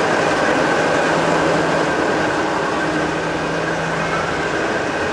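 Steady running noise of a moving passenger train heard inside the carriage, an even rumble with a steady hum running through it.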